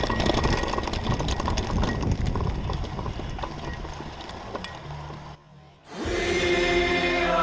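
Wind on the microphone and a mountain bike rattling over rough grass at speed, with many small clicks, fading out about five seconds in. After a brief silence, music with held singing tones begins.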